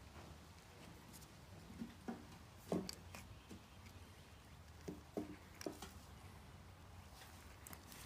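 Faint handling noise of a heavy-duty replacement power plug being assembled: a scattering of small clicks and taps as its plastic and metal parts are fitted together, over a low steady hum.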